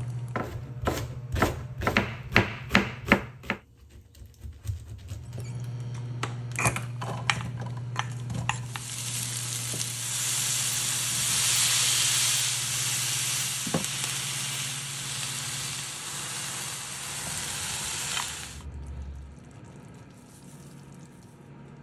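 About eight quick sharp knocks in the first few seconds. Then chopped green onions and minced garlic sizzle in oil in a frying pan while a wooden spatula stirs them; the sizzle is loudest in the middle and dies down near the end.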